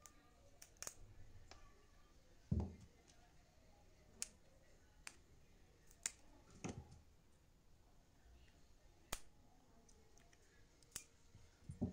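Pliers and a thin metal pick working the metal shell of a phone charger cable's connector: scattered small sharp clicks and a few dull knocks, the loudest knock about two and a half seconds in.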